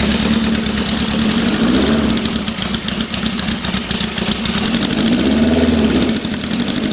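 Honda CB750's air-cooled inline-four idling steadily on its first start after sitting since last year. Its engine speed swells up and falls back twice, a couple of seconds in and again about five seconds in.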